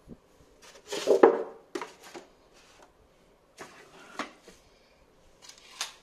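Unboxing handling: a plastic bag rustling and packaging being moved, with a few knocks as parts are set down on a table. The loudest handling comes about a second in, with shorter bursts near two, four and six seconds.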